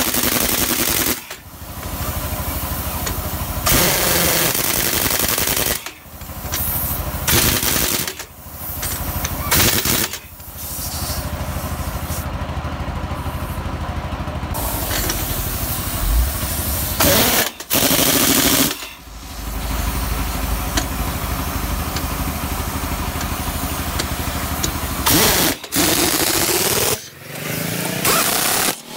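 Heavy-duty impact wrench hammering on a truck wheel's lug nuts in repeated bursts, stopping and starting many times, over a steady mechanical running noise.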